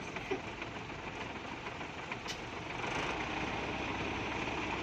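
Heavy vehicle engine running, louder from about three seconds in.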